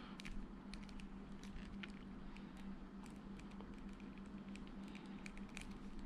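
Faint scattered clicks and rubbing of a plastic S.H.Figuarts action figure being posed by hand, its joints and clear effect part ticking as they are handled, over a steady low hum.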